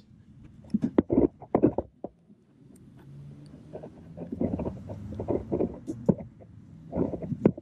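Hard plastic clicks, knocks and scraping as a screwdriver pries at the Honda Civic's fuel door actuator and a hand then wrenches on it in the filler recess. The actuator housing is starting to break but its tabs still hold it.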